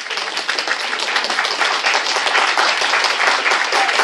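Audience applauding, many hands clapping in a dense, steady stream of overlapping claps.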